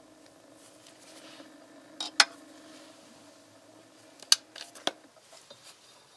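Metal parts being handled: three sharp metallic clicks, one about two seconds in and two more about half a second apart later, over a faint steady hum that stops a little after five seconds.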